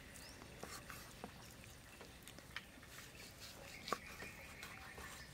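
Kitchen knife slicing through a soft block of meat on a round wooden chopping board: faint scattered clicks as the blade meets the board, with one sharper tap about four seconds in.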